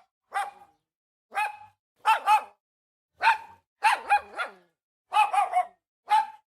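A small dog barking, high-pitched, in short barks that come singly or in quick pairs and triples about a second apart.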